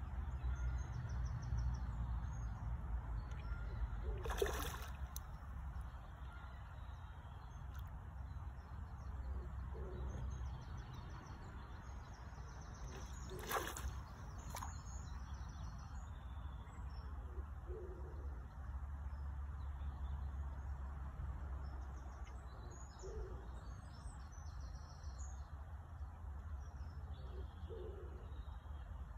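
Steady low wind rumble on the microphone, with birds calling faintly in the background and two sharp knocks, about four and fourteen seconds in.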